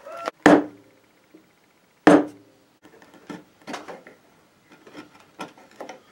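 Two sharp knocks of wood against the wooden workbench, then a run of light, irregular taps and clicks as small hand tools work at a walnut gunstock blank.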